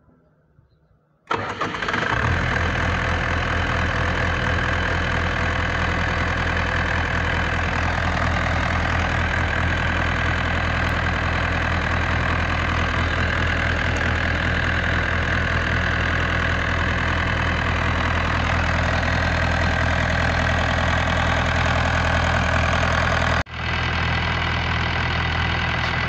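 A 16 kVA diesel generator engine started from a push-button wired straight to its 24 V starter motor relay, bypassing the control panel. It catches about a second in, then runs steadily, with a momentary dropout near the end.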